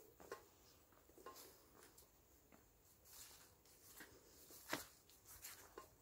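Faint, irregular footsteps and scuffs on a grassy dirt path, with light rustling; the clearest scuff comes about three quarters of the way through.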